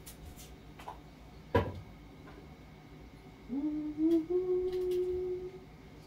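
A single sharp knock about one and a half seconds in, then a person humming one note for about two seconds, sliding up at the start and then holding steady.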